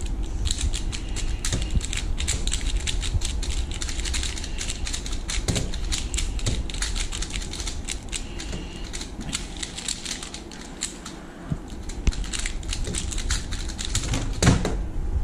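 Rapid, irregular plastic clicking and clacking of two 3x3 speedcubes being turned fast at the same time, one of them a magnetic Valk 3 Mini M solved one-handed. A louder knock comes near the end.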